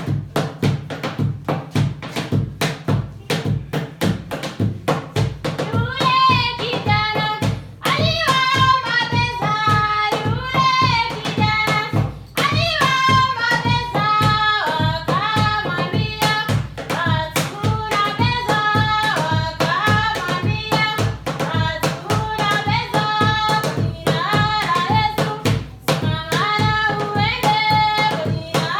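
Music: a fast, steady hand-drum rhythm, with singing voices coming in about six seconds in.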